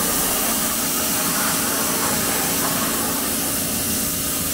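Pressure washer running and spraying water in a steady, even hiss over a faint motor hum.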